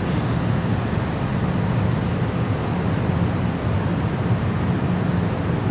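A steady low rumble of outdoor city street ambience, even, with no distinct events standing out.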